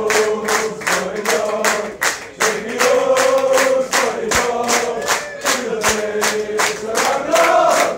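A crowd of football supporters singing a chant together, with steady rhythmic clapping in time.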